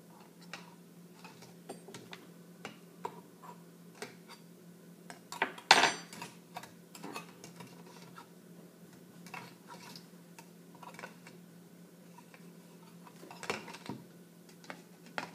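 Light clicking and tapping of a utensil against an egg in a plastic cup of egg dye as it is scooped and dunked, with one louder clatter about six seconds in and another near the end.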